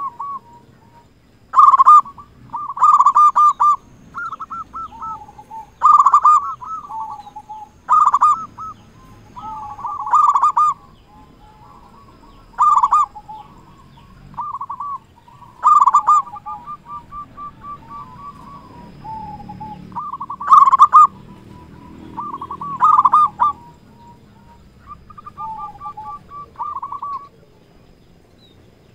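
Local zebra dove (perkutut) in full song: a run of short, bubbling, rolling coo phrases, repeated every one to three seconds. The loudest phrases come near the start and about two-thirds through, and the last few are fainter.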